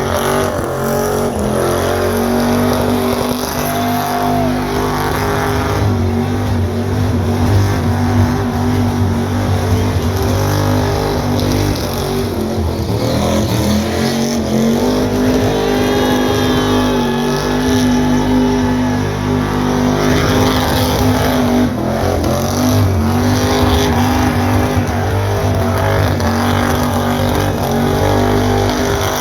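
Big-block V8 in a van held at high revs during a burnout, spinning the rear tires. The engine note stays steady and dips briefly twice, about halfway through and again later on.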